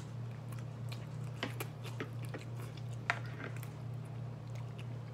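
People eating ramen noodles with forks from plastic bowls: slurping and chewing, with scattered light clicks of forks against the bowls. A sharp click about three seconds in is the loudest sound, all over a steady low hum.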